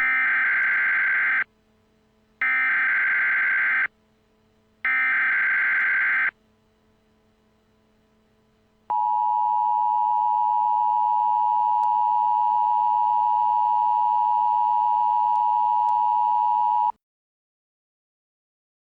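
Emergency Alert System tones: three bursts of the SAME digital header, each a warbling data burst of about a second and a half, a second apart. After a short pause comes the EAS two-tone attention signal (853 and 960 Hz together), held steady for about eight seconds and then cut off abruptly. This sequence marks the start of an emergency alert broadcast, here a flood warning.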